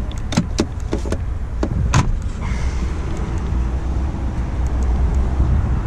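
A series of sharp clicks and knocks from a car door and its latch being handled, the loudest about two seconds in, over a steady low rumble.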